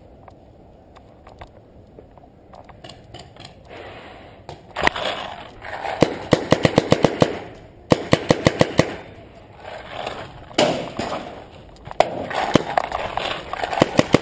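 Paintball markers firing rapid strings of shots, several a second, in bursts from about five seconds in.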